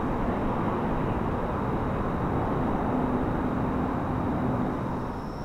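Steady rumble of distant motor vehicles, a faint hum running through it, easing slightly near the end.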